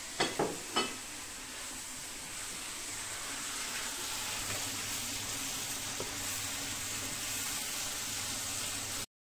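Steady sizzling hiss of food frying in a pan, growing a little louder after a couple of seconds, with a few brief sounds in the first second; it cuts off suddenly near the end.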